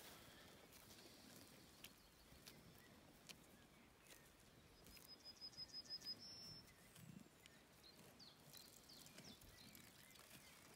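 Near silence: faint clicks and rustles of Dexter cattle grazing close by. A short rapid run of high bird notes comes about halfway through.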